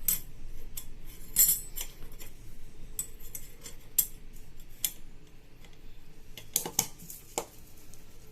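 Sharp metallic clicks and clinks, scattered and irregular, the loudest about a second and a half in and a cluster of several near the end: steel parts of a Honda PCX 150's clutch being handled as the closing plate is fitted onto the shoes and springs.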